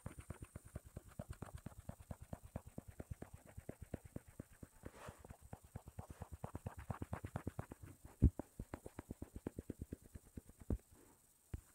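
Rapid blending strokes on a tablet touchscreen, picked up through the tablet: a fast, even run of soft taps, about nine a second, with one louder knock a little past the middle, thinning out to scattered taps near the end.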